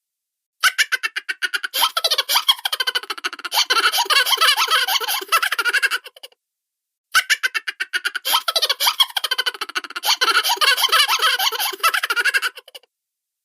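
Cartoon laughter sound effect: rapid, high-pitched chattering giggles. It plays twice, each run about six seconds long, with a short silence between them.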